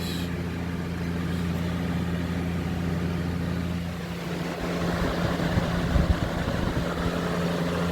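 Air King 20-inch box fan (model 9733) running on high speed: a steady motor hum under a rush of moving air. About four seconds in the sound shifts, with the low hum weakening and the air rush getting louder and more uneven.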